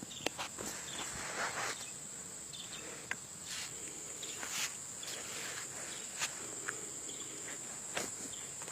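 Honeybees buzzing around an open Kenyan top bar hive, with a high steady whine over the hum and scattered sharp clicks and rustles from handling or steps.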